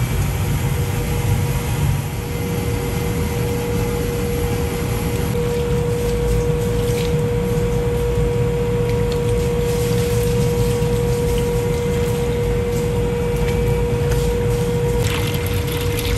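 Steady low rumble with a constant hum from commercial kitchen equipment. About a second before the end, water gushes from a hose into a bin of ice.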